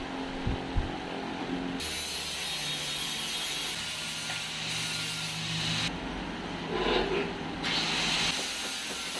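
Clicks and rubbing of a plastic car headlamp unit being handled and pushed into its mounts, with two sharp clicks in the first second. Workshop background noise changes abruptly several times.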